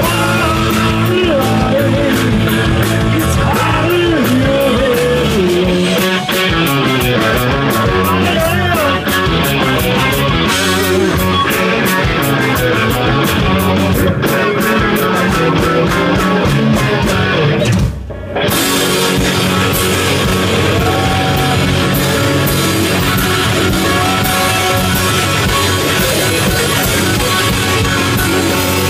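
Live rock band playing, with distorted electric guitars and a drum kit. The band stops for a moment about eighteen seconds in, then comes straight back in.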